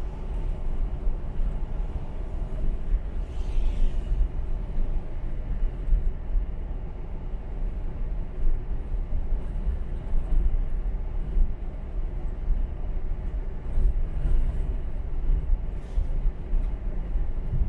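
A car driving: a steady low rumble of road and engine noise, with a brief hiss about three seconds in.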